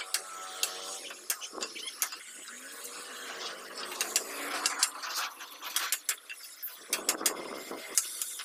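Irregular sharp clicks and light taps over a faint steady hiss, with a short rougher rush of noise about seven seconds in.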